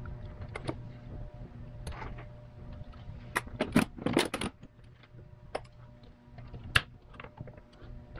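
Small clicks, scrapes and rustles of hands and a razor working on the protective plastic sleeve of a fuel line, cutting and tearing it away, with a cluster of louder scraping about halfway through and one sharp click near the end. A faint steady low hum lies underneath.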